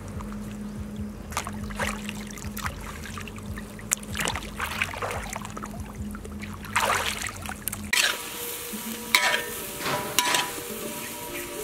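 Lake water lapping and splashing around water lilies over a low steady hum. About eight seconds in, this gives way to stir-frying: chopped water lily stems and ground pork being turned in a hot pan, sizzling, with sharp metal clinks of the spatula.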